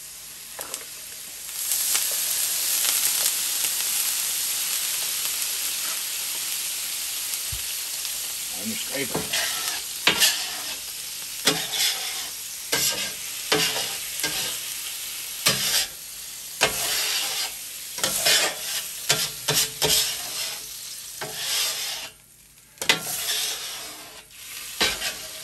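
Warm water hitting a hot steel flat-top griddle, sizzling loudly into steam, the hiss fading slowly over several seconds. After that comes a run of quick scrubbing and scraping strokes across the steel over continued sizzling, with a brief pause near the end.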